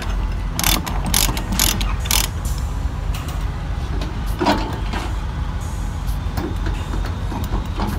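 Ratchet chain binder being cranked to tighten a load chain, its pawl clicking in a quick run through the first couple of seconds, then only a few single clicks. A steady low rumble runs underneath.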